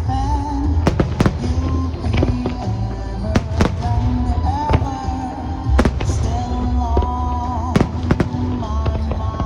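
Aerial fireworks bursting in a display, with sharp bangs at irregular intervals over slow melodic music with a steady bass.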